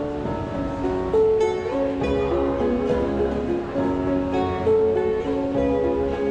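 Acoustic guitar played live, a run of plucked and strummed chords with no singing.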